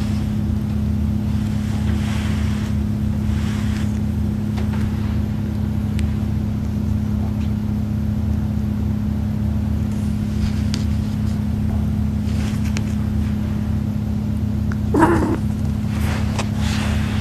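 A steady low hum with fixed pitch, unchanging throughout. A few faint soft sounds lie over it, and a short pitched sound comes about fifteen seconds in.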